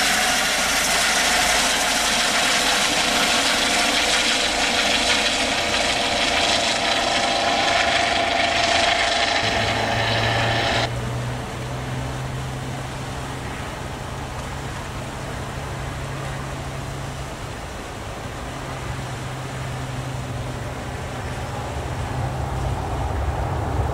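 Eurocopter EC135 P2 helicopter, with twin turboshaft engines and a Fenestron tail rotor, lifting off and flying away: loud turbine whine and rotor noise. About eleven seconds in, it drops suddenly to a quieter, distant drone with a steady low hum as the helicopter climbs off.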